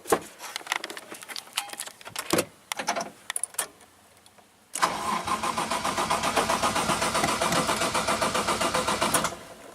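A few scattered clicks and knocks. Then, about halfway through, a Toyota 1JZ VVTi engine starts suddenly on its newly installed wiring harness, runs with an even pulse for about four seconds, and stops abruptly.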